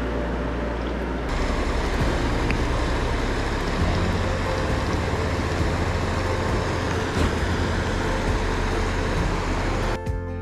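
Steady rush of stream water, with a low rumble like wind on the microphone underneath.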